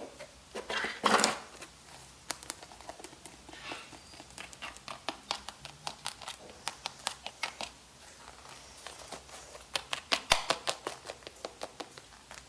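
Fingers and fingernails tapping and scratching over a new sneaker's plastic air-bubble sole and upper, making quick irregular clicks. There is a short, louder rustle of handling against the cardboard shoebox about a second in.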